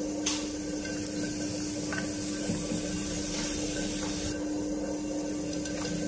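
Metal trimming tool scraping leather-hard clay off the base of a pot turning on an electric potter's wheel, a steady rasping over the wheel motor's constant hum.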